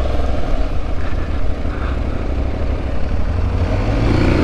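Aprilia Tuareg 660's parallel-twin engine running at low speed, its note rising in pitch near the end as the bike pulls away.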